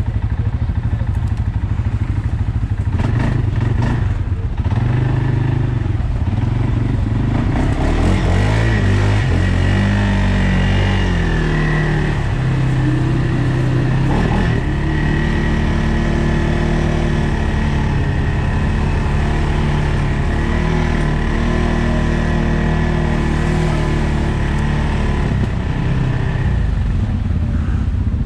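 CFMOTO 600 off-road machine's engine running under way, with a few knocks and rattles about three to four seconds in. The revs rise and change between about eight and fifteen seconds in, then hold fairly steady and ease off near the end.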